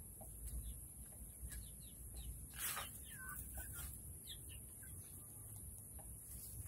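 Chickens giving faint, short chirping calls, several scattered across the few seconds, with a brief rustle about two and a half seconds in.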